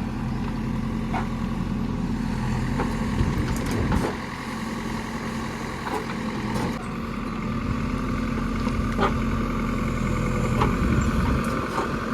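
Heavy diesel engine running steadily. Its note drops about four seconds in and picks up again near seven seconds, with a few sharp knocks scattered through.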